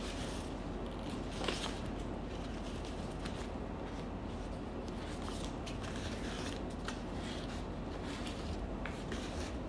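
Faint rustling of paper mehndi stencil sheets being handled and shifted, a few soft crinkles over a steady low room hum.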